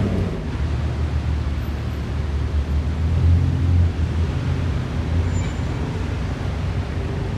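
Car engine running at low revs with a deep, steady exhaust rumble, swelling a little about three to four seconds in.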